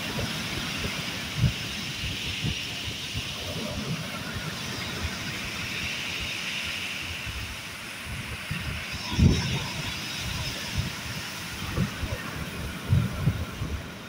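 Sea waves breaking and washing onto a pebble beach: a steady surf hiss that swells and eases, with irregular low thumps throughout, the strongest about nine seconds in.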